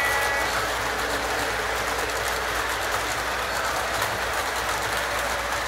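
Model train freight cars rolling past on the track: a steady running hiss from the wheels, with faint clicking as they cross the rail joints. A held multi-tone sound dies away about half a second in.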